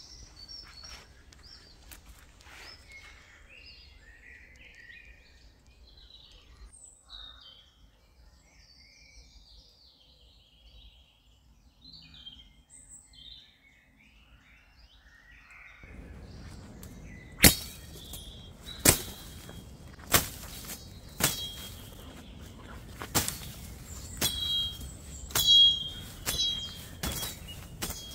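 Birds chirping over faint footsteps on a woodland path; then, from about halfway, a machete hacking through bracken ferns: about eight sharp chops a second or so apart, several with a brief metallic ring, over rustling of the fronds.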